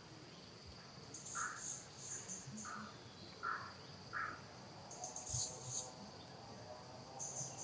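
Insects, crickets or cicadas, drone on one steady high note, with bursts of faster, higher chirping about a second in, a little past the middle and near the end. Four short, mid-pitched calls sound over them in the first half.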